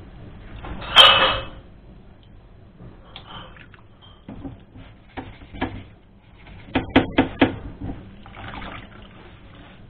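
A ventilation unit's blower wheel is set down into a sink of soapy water with a splash about a second in. A toothbrush then scrubs and knocks against the wheel's blades, with a quick run of four knocks a little after halfway.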